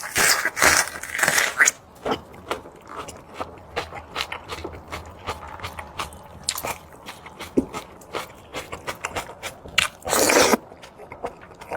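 A person eating close to the microphone: crunchy bites and chewing, with loud crunching in the first second or so and again about ten seconds in.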